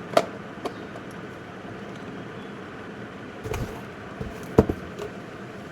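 A few sharp clicks and knocks of hard plastic parts of a mixer grinder being handled, over a steady background hiss; the motor is not running.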